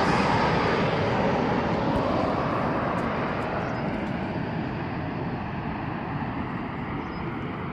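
Boeing 737 MAX 8 airliner's CFM LEAP-1B turbofans on landing approach, a broad rushing jet noise that fades steadily as the plane moves away, its higher tones dying out first.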